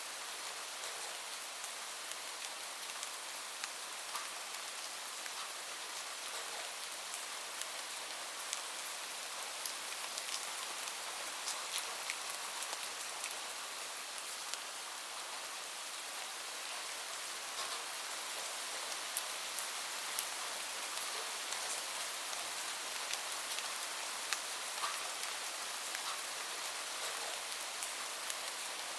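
Steady rain falling, a constant hiss with many small drops ticking here and there.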